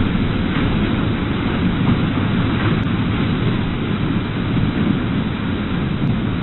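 Floodwater rushing and churning through a flooded building's ground floor, a loud, steady rush of moving water.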